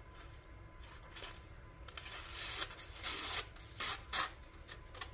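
D2 steel pocketknife blade slicing thin magazine paper in a sharpness test: several short, faint rasping cuts, most of them in the second half.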